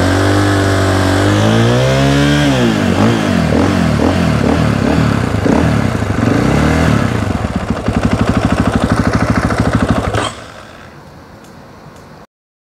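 KTM 500 EXC-F single-cylinder four-stroke running through an Akrapovič exhaust. It is revved up and let fall about two seconds in, then blipped several times, and runs at a fast, even pulse before cutting off about ten seconds in.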